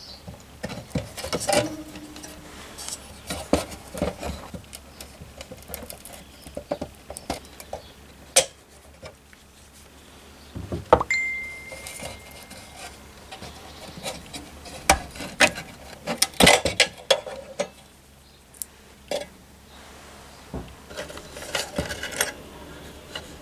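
Metal parts of an old Meva lantern clinking and clanking as they are handled, in irregular clusters of knocks. About halfway through, one strike leaves a short steady ring, like sheet metal or a wire part vibrating.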